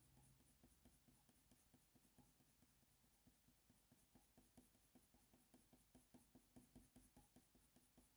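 Near silence, with very faint, quick, repeated strokes of a Faber-Castell Polychromos colour pencil shading on hot-press watercolour paper.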